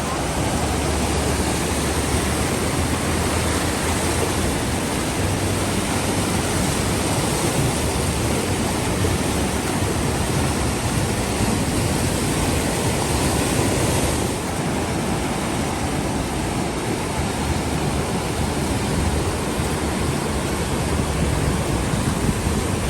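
Fukiware Falls, a waterfall in heavy flow: a steady, dense rush of falling water. The high hiss thins slightly about fourteen seconds in.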